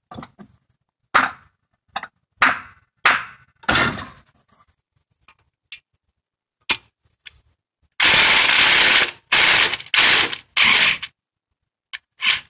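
A hammer striking metal at the engine mount, five quick hits that each ring briefly. After a pause come three loud bursts of about a second each as the bolt on top of the front engine mount is loosened, then one more sharp hit.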